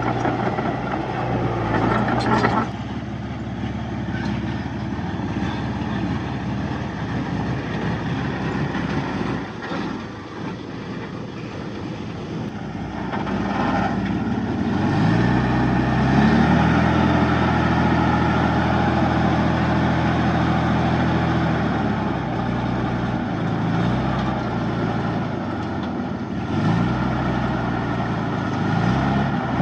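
Heavy diesel earthmoving machinery engine working. About halfway through it revs up and holds steady under load for several seconds, then drops back, with two short rises near the end.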